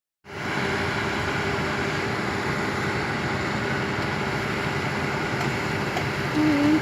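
Kobelco SK220 XD excavator's diesel engine running steadily with a constant hum.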